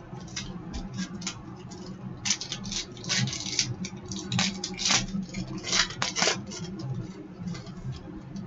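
Trading cards being handled and flipped through by hand: a run of short, irregular flicking and scraping sounds of card stock sliding against card stock, over a steady low hum.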